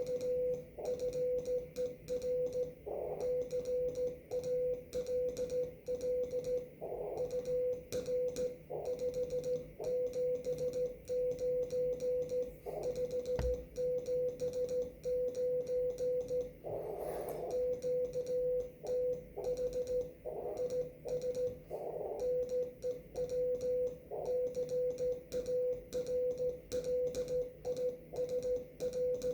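Morse code (CW) received on a ham radio on the 30-meter band: a single steady mid-pitched tone keyed on and off in dots and dashes, over faint receiver hiss with a few short bursts of static.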